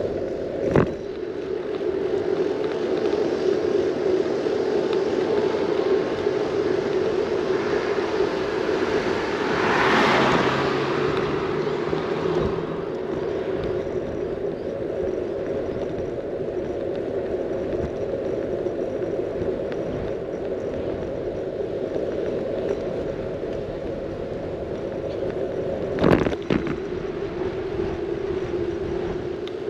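A bicycle rolling on asphalt, heard from a handlebar-mounted camera: a steady rumble of tyre and wind noise. A louder whoosh swells and fades about ten seconds in, and sharp knocks come from bumps just after the start and near the end.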